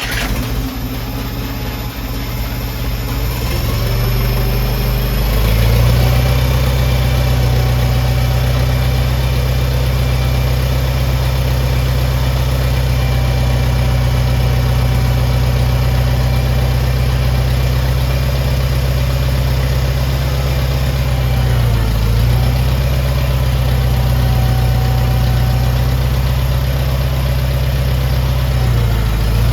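International 424 tractor engine just started, running steadily at about an idle. Its speed rises over the first few seconds, then holds, with two brief dips, one about two-thirds of the way through and one near the end.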